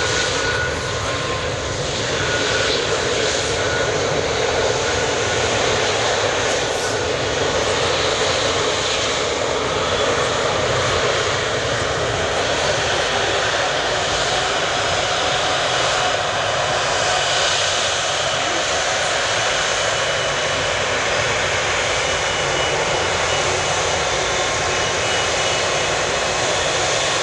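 Monarch Airbus A330's twin jet engines running loud and steady as the airliner taxis and turns on the runway.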